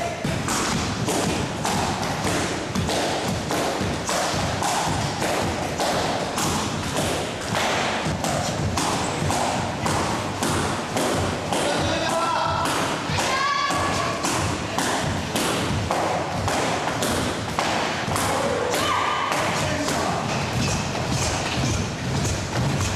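Karate belts being swung and snapped in quick succession, making rapid, irregular slaps and thuds several times a second, with brief voices mixed in.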